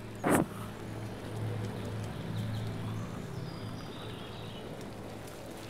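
Steady low rumble of riding noise from a camera carried on a moving bicycle, with one sharp knock shortly after the start.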